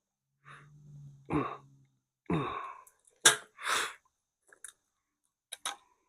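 A series of separate knocks and clicks from handling metal hardware and tools, with a short rustling burst just after the loudest, sharpest click a little past the middle.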